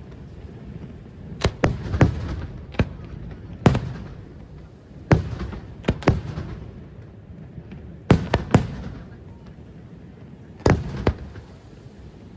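Aerial firework shells bursting in a loose series of sharp bangs, some single and some in quick twos and threes, each trailing off in an echo.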